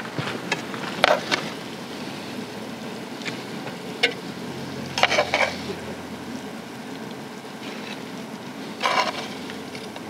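Metal tongs clinking and scraping on a non-stick camping pan and an enamel plate as pieces of cooked chicken are served: a handful of short, sharp clinks, the loudest about a second in, around five seconds in and near the end, over a steady hiss.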